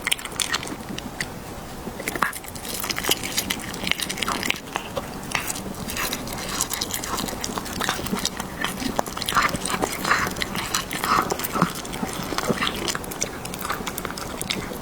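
A cat biting and chewing food: a steady run of wet, crunchy clicks and crackles of eating at close range.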